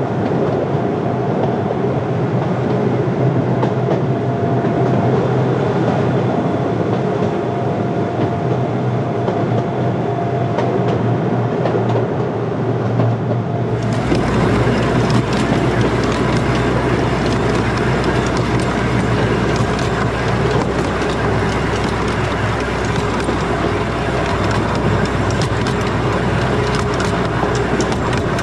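Zilker Eagle miniature train running along its track, heard from aboard: steady running noise with a low hum. About halfway through the sound changes abruptly and gains more low rumble.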